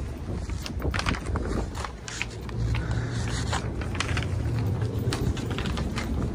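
Wind rumbling low on the microphone, with scuffing footsteps and short clicks as the camera is carried down brick steps and across a brick patio.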